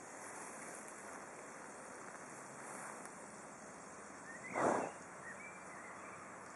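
Outdoor rural ambience: a steady faint hiss, with a short loud rushing noise about four and a half seconds in and a couple of faint chirps just after.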